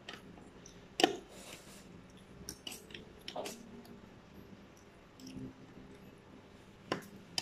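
Spoons and forks clinking and scraping on ceramic plates, with quiet chewing of fish and rice. The loudest is a sharp clink about a second in, with a few more later and two near the end.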